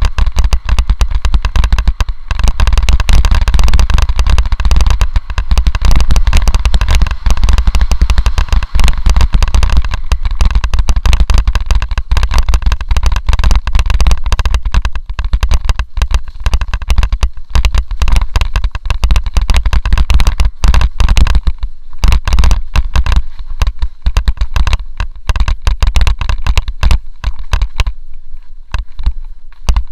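Mountain bike descending a rough dirt forest trail, recorded by a camera mounted on the bike: a dense, fast rattle and clatter of the bike and camera mount jolting over the ground, over a heavy low wind rumble. The rattle thins out near the end.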